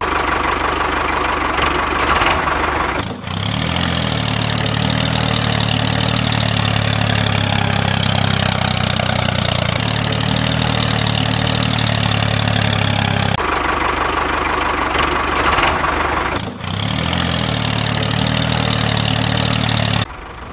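Mini tractor's small engine running steadily at idle, broken by abrupt cuts between shots.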